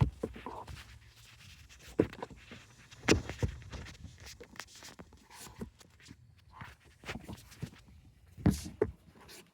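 Hard plastic dashboard trim and the i-MID housing knocking and clicking as they are handled and pulled free. There are a few sharp knocks, the loudest about three seconds in and again near the end, with quieter rustling and clicking between them.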